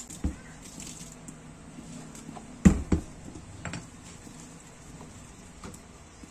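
Wet, soft scrubbing and handling of a small metal airgun part with a soapy sponge in a stainless steel sink, with two sharp knocks close together a little before the middle and a few light clicks after.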